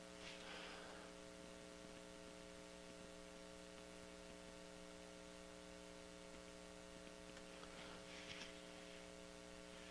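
Near silence with a faint, steady mains hum of several even tones. Two faint, brief noises come about half a second in and about eight seconds in.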